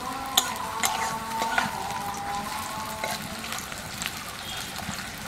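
Sliced onions frying in oil in a steel kadai, a steady sizzle, stirred with a metal spatula that scrapes and clicks against the pan a few times in the first two seconds. The onions are being fried down to crisp brown beresta.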